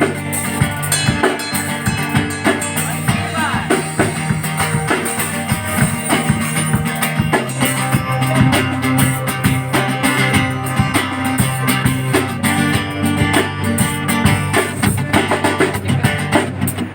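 A live band plays an instrumental break with no vocals: a drum kit keeps a steady beat under guitar and held low bass notes.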